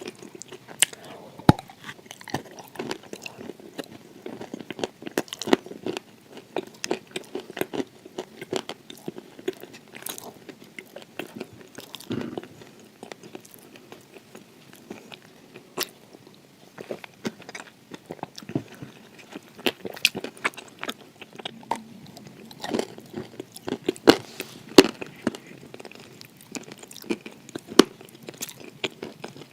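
A person biting and chewing crunchy edible clay close to the microphone: irregular sharp crunches and softer chewing.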